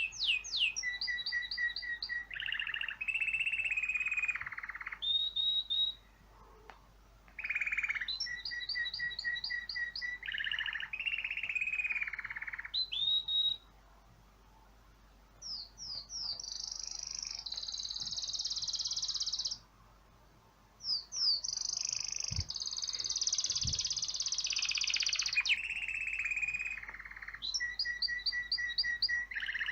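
Recorded birdsong played through a phone speaker: phrases of quick high chirps, repeated notes and trills, with short pauses between them, the same phrase coming round again every several seconds.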